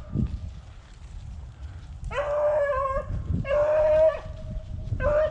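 A rabbit hound baying on the trail of a rabbit. After a brief lull there are three drawn-out bawls, starting about two seconds in, which is the dog giving voice while it runs the rabbit.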